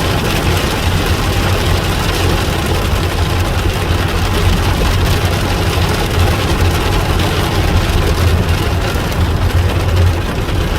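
Heavy rain drumming hard on a car's roof and windshield, heard from inside the cabin, over the steady low hum of the idling engine.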